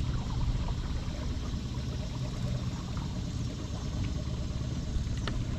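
Small boat's outboard motor running steadily at low speed, with a light knock near the end.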